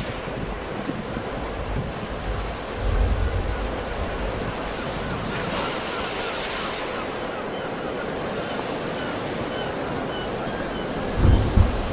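Sea waves washing on the shore in a steady surf, with one wave breaking more loudly about six seconds in. Wind buffets the microphone briefly about three seconds in and again near the end.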